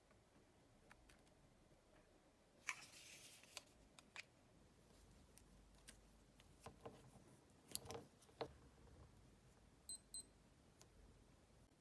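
Faint handling sounds of an old white Apple USB dock-connector cable being unwound by hand: a brief rustle, then a few soft clicks and taps. Near the end, two short high electronic beeps in quick succession.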